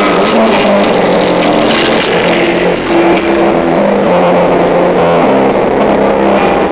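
Loud music, an instrumental passage of a pop song, played through a Ford EcoSport's car sound system.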